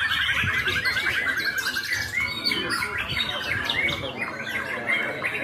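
Caged white-rumped shamas (murai batu) singing over one another in a songbird contest. A fast, evenly repeated trill runs for the first couple of seconds, then gives way to varied phrases.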